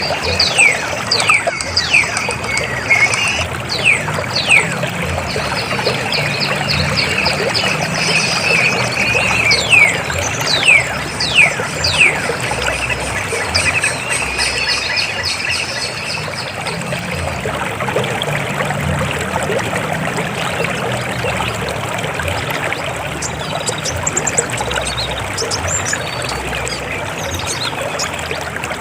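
River water flowing steadily over rocks. During roughly the first dozen seconds, many quick high whistles slide downward over it, then fade out.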